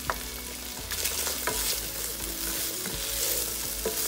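Beef cubes, carrots and celery sizzling in a frying pan as a wooden spoon stirs them, with sharp knocks of the spoon on the pan. The sizzle grows louder about a second in.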